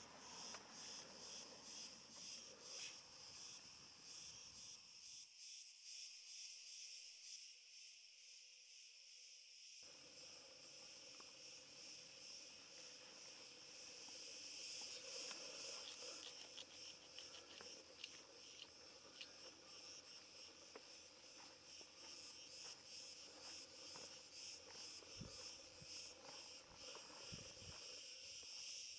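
Faint, steady chirring of an outdoor insect chorus, a dense fast trill high in pitch.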